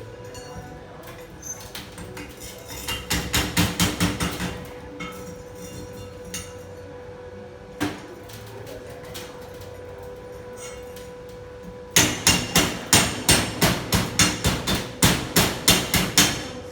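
Hammer striking metal in rapid, even blows, about four or five a second: a short run about three seconds in, then a louder, continuous run from about twelve seconds in. A steady hum at one pitch runs underneath.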